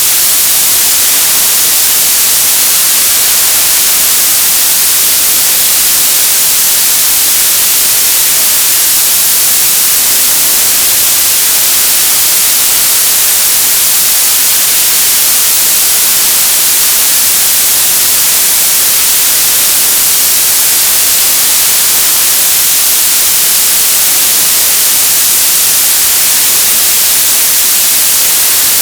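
Television static: steady, loud hiss of an untuned analogue TV, with no change or break, heaviest in the treble.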